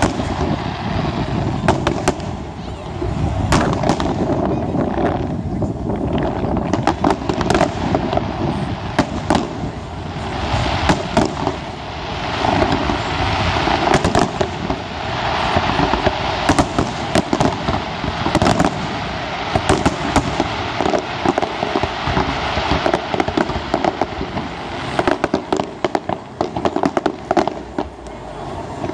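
Fireworks display: aerial shells bursting in a rapid, near-continuous string of sharp bangs.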